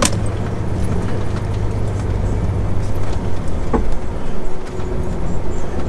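MAN TGX semi-truck's diesel engine running at low speed, heard from inside the cab as a steady low hum, while the truck turns around. A sharp click sounds right at the start.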